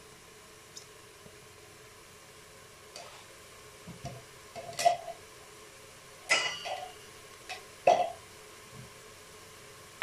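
Scattered knocks and clatter of a wooden spoon against the metal bowl of a Cookeo multicooker as chopped onions are stirred and the spoon is laid across the rim. They start about three seconds in, and the sharpest come near five, six and eight seconds.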